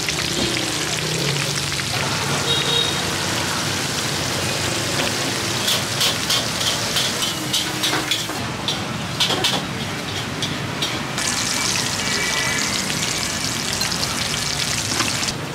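Spring rolls and wontons deep-frying in a wok of hot oil: a steady, dense sizzle. About halfway through comes a run of sharp clicks and clinks.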